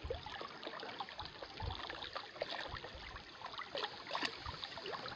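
Water and gravel sloshing in a plastic gold pan held in a shallow creek, a quiet wash of water with many small clicks of grit and pebbles. The pan is being swirled and dipped to wash the lighter gravel out over the rim so the gold settles to the bottom.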